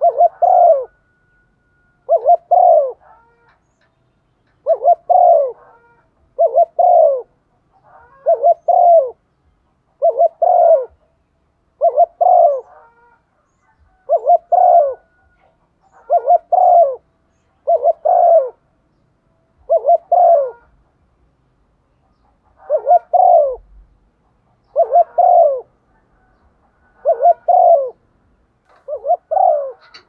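Female spotted dove cooing at close range: short two-note coos repeated steadily, about one every two seconds.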